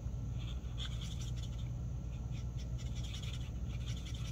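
Marker nib scratching over cardstock in many quick, short strokes as a stamped flower is coloured in, over a steady low hum.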